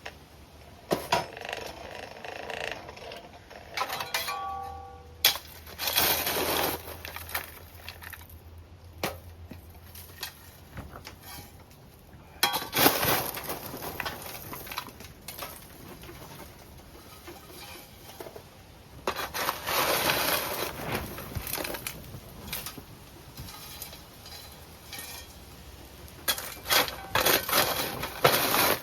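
Metal blacksmithing tools clinking and scraping at the forge's fire pot, in irregular knocks and several rough scraping stretches, with a short metallic ring about four seconds in.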